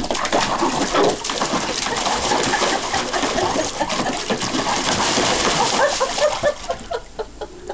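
A dog splashing water about in a small pool: repeated splashes and sloshing, dying down about seven seconds in. A few short low sounds from the dog are mixed in during the second half.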